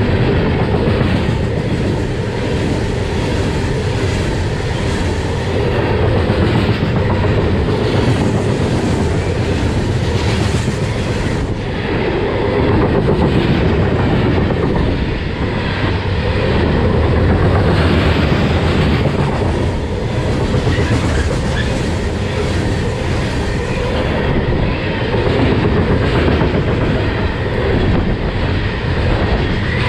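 Coal train's hopper cars passing close by at around 60 mph: a loud, steady rumble and rush of steel wheels on rail, with repeated clicks as the wheels cross rail joints.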